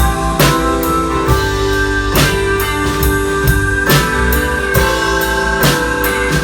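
Instrumental break of a country-rock song: a drum kit keeps a steady beat, about one heavy hit a second, under electric guitar playing long held notes, with no singing.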